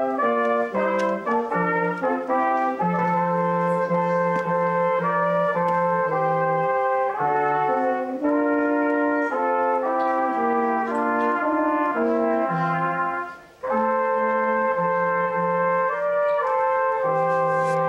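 Brass-toned instrumental music playing a slow, hymn-like tune in held chords, with a short break between phrases about 13 seconds in.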